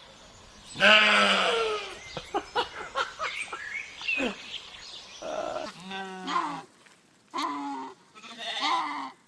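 Goats bleating: one long, loud bleat about a second in, then a run of shorter calls, then several quavering bleats near the end.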